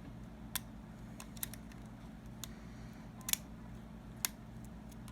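Lock pick and tension wrench working the pin stacks of a Jedo challenge lock: scattered small metallic clicks, four of them sharper, as the pins set and drop. A steady low hum runs underneath.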